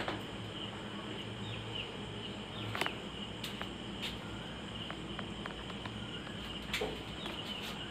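Steady high-pitched insect chirring over a low hum, with a few faint clicks.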